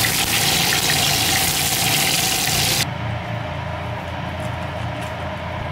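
Breaded pork cutlets shallow-frying in a frying pan: hot oil sizzling with fine crackles. The sizzle cuts off abruptly about three seconds in, leaving a much quieter low background.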